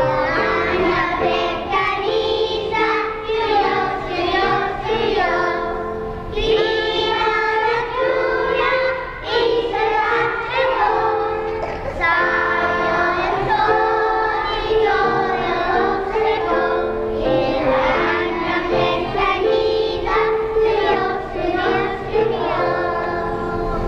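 Children singing a song together with piano accompaniment.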